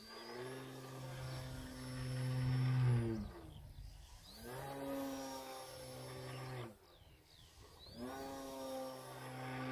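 Electric motor and propeller of a Mercury Galahad model plane converted to electric power, droning in three bursts. Each burst rises in pitch as the throttle opens and drops away as it is cut back.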